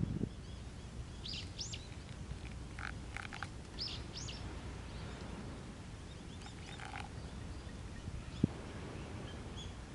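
Small birds chirping, several clusters of short high calls, over a low steady outdoor rumble. A single sharp tap sounds near the end.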